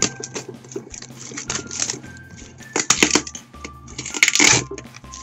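Clear plastic bag crinkling and crackling as it is pulled and handled off a cardboard shipping box, in irregular bursts, loudest about three seconds in and again just past four seconds.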